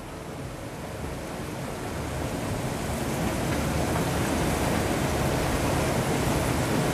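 Salt cod, peppers and tomatoes sizzling in garlic oil in an aluminium frying pan over a gas flame as pieces of romanesco broccoli go in. The sizzle grows louder over the first few seconds, then holds steady.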